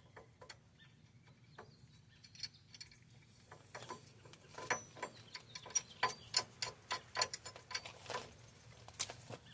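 Faint, sharp metallic clicks from a wheel bearing puller's nuts and bolts being fitted to the hub. The clicks are sparse at first, then come about three a second from a little past a third of the way in.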